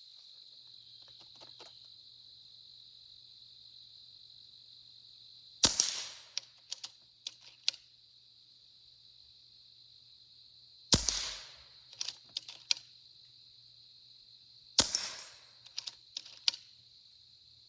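Hatsan Factor .22 PCP air rifle fired three times, several seconds apart. Each shot is a sharp crack followed by a few quick, smaller clicks and knocks from the pellet hitting the metal knock-down targets and the lever being cycled.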